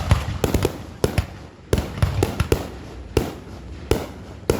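An irregular run of sharp bangs and cracks, more than a dozen in under five seconds, several with a low thump.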